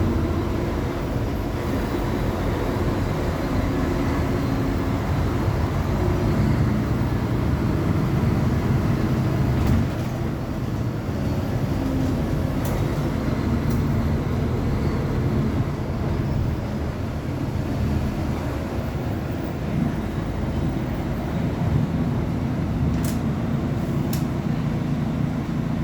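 Diesel engine of a Mercedes-Benz O500UA articulated bus running steadily, its pitch rising and falling as the engine speed changes. There are a few sharp clicks or knocks about thirteen and twenty-four seconds in.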